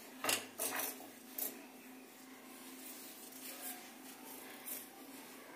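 Faint scraping and rubbing as thin rolled dough is trimmed and its cut-off edges are peeled off a wooden board, with a few short scrapes in the first second and a half, then quieter handling.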